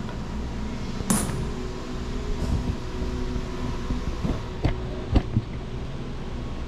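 Steady low room hum with a few sharp clicks and knocks, one about a second in and a small cluster about two-thirds of the way through.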